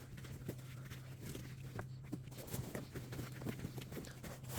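Light, scattered taps, knocks and rustles of items being handled and moved, over a low steady hum.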